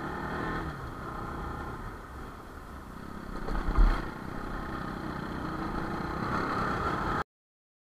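Bajaj Pulsar NS200 motorcycle being ridden on a wet road, its single-cylinder engine running steadily under wind noise on the helmet camera's microphone. A loud low thump comes a little before four seconds in, and the sound cuts off suddenly about seven seconds in.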